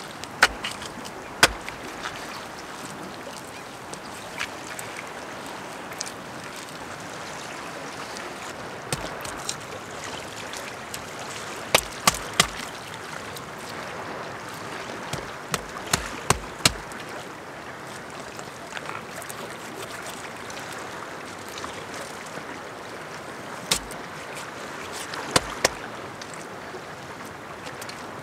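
Stones clicking and knocking against each other as rocks are set into a wet-clay wall, about a dozen sharp knocks at irregular moments, some in quick runs of two or three. Underneath runs a steady hiss of small waves.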